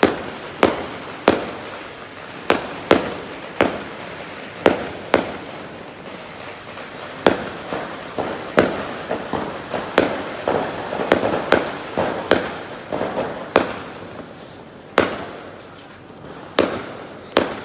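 Aerial fireworks going off in a long, irregular run of sharp bangs, roughly one or two a second, with crackling between them. The smaller pops come thickest around the middle.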